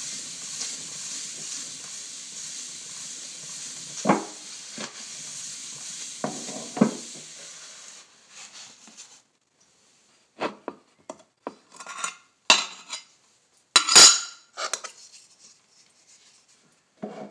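A paper towel wet with mineral spirits is rubbed back and forth over porcelain floor tile, a steady scrubbing hiss with a few knocks, cleaning the sanded tile before painting. About eight seconds in the rubbing stops, and scattered clicks and knocks follow, the loudest about fourteen seconds in.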